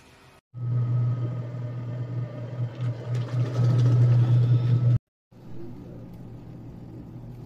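Washing machine motor running with a steady low hum and a rattly noise over it. It cuts off abruptly about five seconds in, and after a brief silence a quieter hum carries on.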